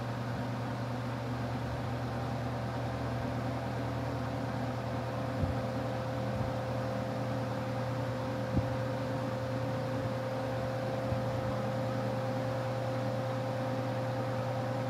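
Two high-velocity floor fans, a Lakewood HV-21T and a Lasko H20301, running together at steady speed: an even rush of air over a steady motor hum and a steady middle tone, with a couple of faint ticks.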